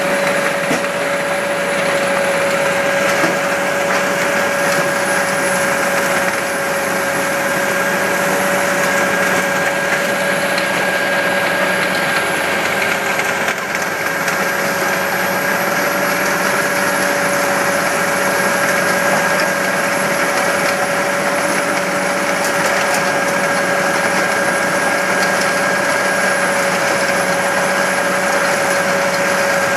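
Tracked mobile jaw crusher running under load as it crushes rock. Its engine and machinery give a steady mechanical din with a constant high whine, while crushed stone pours off the discharge conveyor.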